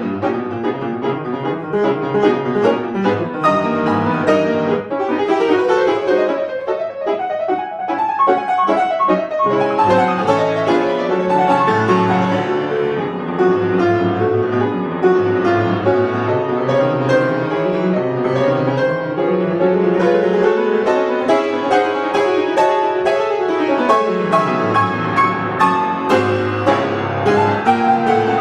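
Solo piano playing a lively piece, with dense, continuous notes and rapid runs sweeping up and down the keyboard.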